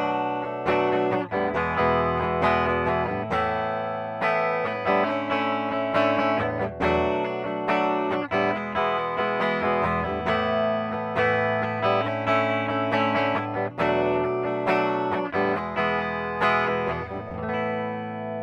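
PRS SE Custom 22 electric guitar played on its bridge pickup with a clean tone, a steady run of picked notes and chords ringing out.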